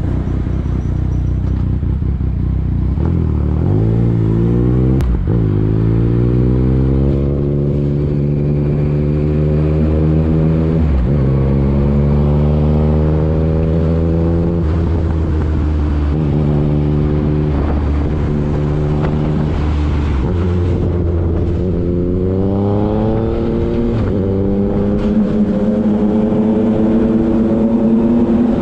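Yamaha XSR900's inline three-cylinder engine heard from the rider's seat, pulling away and rising in pitch through two upshifts in the first dozen seconds, then holding a steady cruise. About twenty seconds in it drops back, then pulls up again and holds.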